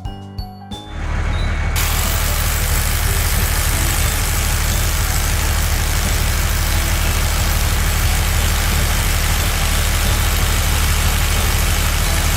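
Engine of a heavy vehicle, likely a construction truck, starting up about a second in and then running steadily at idle with a deep, even rumble and a constant hiss.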